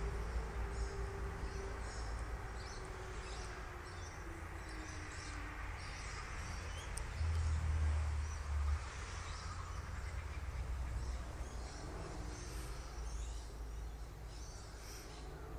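Dusk outdoor ambience: small birds give repeated short, high chirps over a constant low rumble. A faint tone falls slowly in pitch over the first few seconds, and a louder low rumble lasts about a second and a half around seven seconds in.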